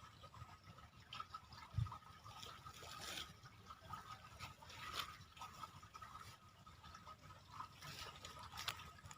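Faint trickling water with small scattered splashes and drips, and one soft low bump about two seconds in.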